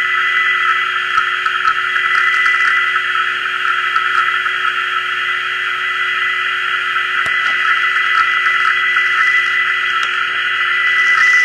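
Audio from a Yaesu FRG-7 communications receiver tuned to the Tokyo JMH radio-fax broadcast on 13988 kHz: a steady band of hiss with a steady tone running through it, the fax signal well down in the noise under marginal propagation.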